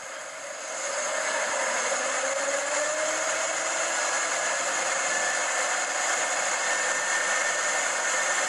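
Duck boat's engine running under way with a steady rush of wind and water. It gets louder about a second in, and its pitch climbs slowly for the next couple of seconds before holding steady.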